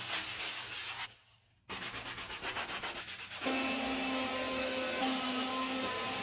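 Quick back-and-forth scrubbing, a few rubbing strokes a second, cut off by a brief silence about a second in. A bit past halfway a steady, louder humming motor starts up and runs on.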